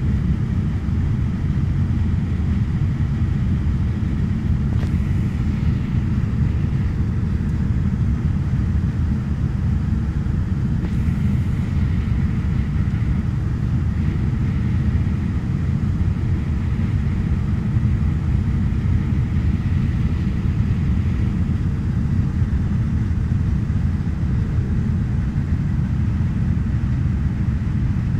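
Steady low drone of a Fokker 50's twin turboprop engines and propellers, heard inside the passenger cabin, with a faint steady hum above it.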